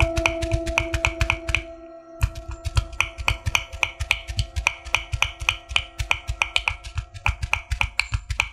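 Miniature cleaver chopping minced pork on a small wooden cutting board: quick, even knocks about five a second, with a brief pause about two seconds in. Soft background music with long held notes plays underneath.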